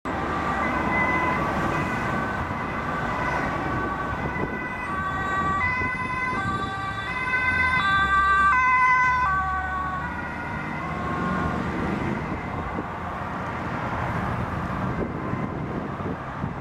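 An emergency vehicle's two-tone siren alternating between a high and a low pitch, growing louder to a peak about eight to nine seconds in and then fading away, over the steady noise of passing road traffic.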